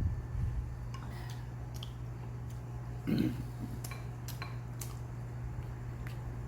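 Spoons and chopsticks clicking and clinking against bowls and dishes during a meal, in scattered light ticks over a steady low hum, with one brief louder low sound about three seconds in.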